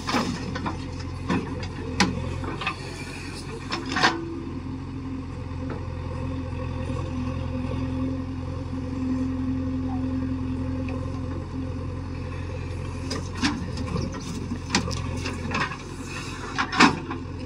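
JCB backhoe loader's diesel engine running steadily under load as the rear bucket digs and loads soil, with a few sharp knocks about two and four seconds in and again near the end.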